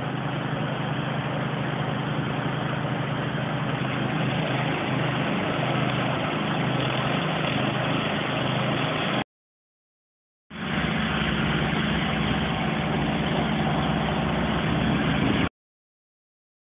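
Hot-water pressure washer running steadily, an engine drone under the hiss of the spray. The sound cuts off abruptly to silence twice, about nine seconds in and again about fifteen seconds in.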